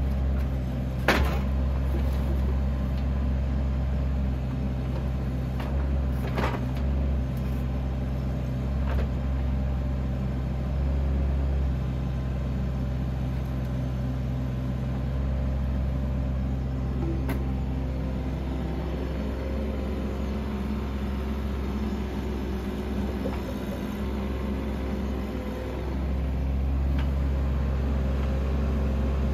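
Bobcat 319 mini excavator's diesel engine running steadily while its hydraulic wood grapple handles logs. A few sharp knocks of wood on wood come through, about a second in, around six seconds in and again near the middle.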